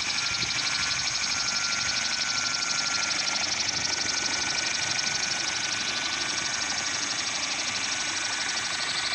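Electric motor and propeller of a radio-controlled gyrocopter (Xcell 60 helicopter conversion) running steadily, with its rotor spinning. It makes a steady high-pitched whine with a fast, even flutter.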